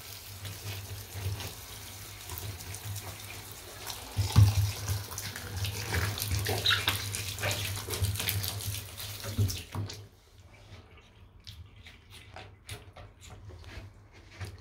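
Hand-held shower spraying water onto wet sneakers in a bathtub, stopping suddenly about ten seconds in. Scattered short knocks follow.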